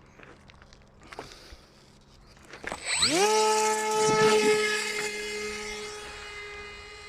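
Model plane's brushless outrunner motor (Turnigy D2836/8 1100kv) with an 8x4 propeller spinning up about three seconds in: a quick rising whine that levels off into a steady high-pitched hum, slowly getting quieter toward the end. Faint clicks come before it.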